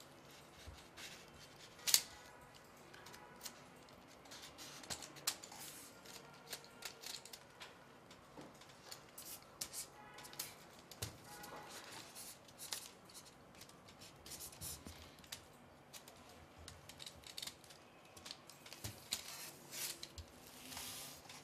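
Irregular small clicks, taps and scrapes of gimbal clamp blocks being slid along and fitted onto a carbon-fibre arm tube, with one sharper click about two seconds in and a longer scrape near the end.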